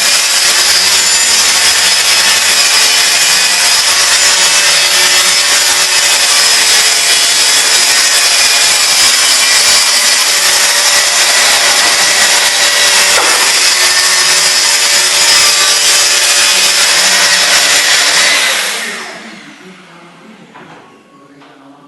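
Power tool cutting wood, running loud and steady, then switched off and winding down about three seconds before the end, followed by a few light knocks.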